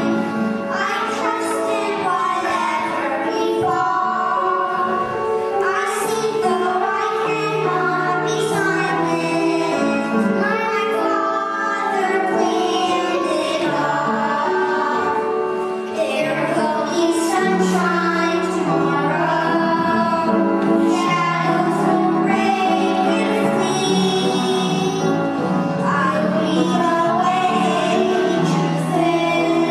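Three young children singing a song together over a musical accompaniment with steady held low notes.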